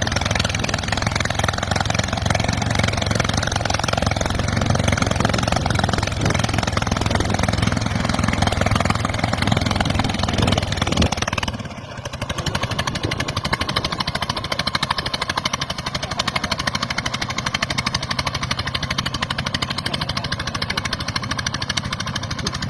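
Vehicle engine running steadily. About halfway through, the sound drops briefly, then carries on with a finer, even pulsing.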